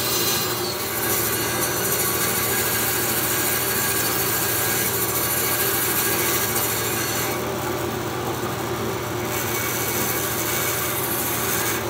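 Bandsaw running with its blade cutting through the solid rubber tread of a Land Pride finish-mower wheel. The wheel is turned by hand against the blade to trim the worn, chipped tread to a narrower profile. The steady cutting hiss thins out for about two seconds past the middle.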